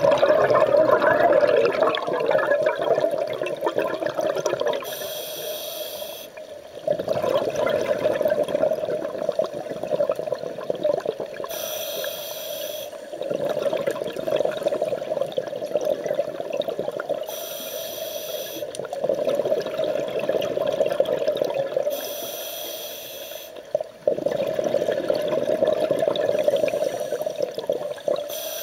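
Scuba regulator breathing heard underwater: long bubbling exhalations alternating with short hissing inhalations, about five breaths in a slow, even rhythm.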